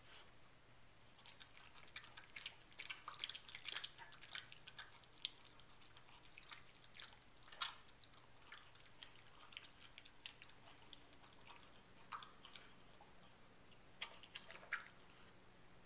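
Dog eating from a stainless steel bowl: quick, soft clicking and crunching of chewing, busiest in the first few seconds and again near the end.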